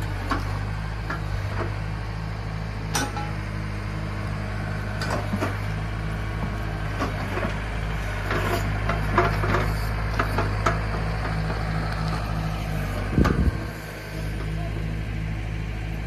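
Compact tractor engine running steadily while its rear-mounted backhoe digs into dirt and roots, with scattered clanks and knocks from the bucket and arm, and one heavy thump near the end.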